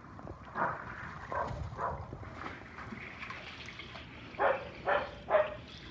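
A dog barking in short single barks, three softer ones early and then three louder barks about half a second apart near the end, over light water sloshing.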